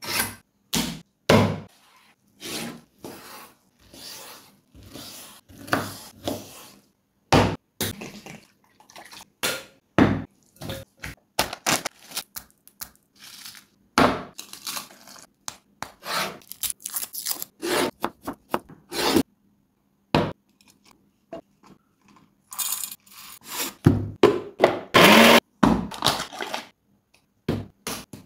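A series of close-up kitchen preparation sounds, each a short stroke, scrape or knock with brief gaps between: a knife drawn through a pull-through knife sharpener at the start, a glass bowl set down on a wooden chopping board, and yogurt spooned out of a tub over chicken pieces in a glass bowl. A louder, denser run of scraping and handling noise comes a few seconds before the end.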